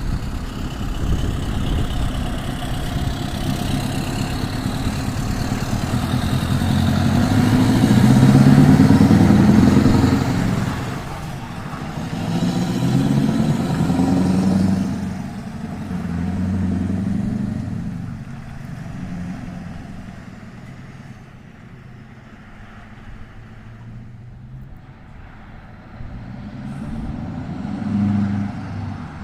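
Scania V8 diesel truck with a straight-through exhaust, running and revving, its exhaust note rising and falling in several swells. It is loudest about eight to ten seconds in, quieter for a while after the middle, and swells again near the end.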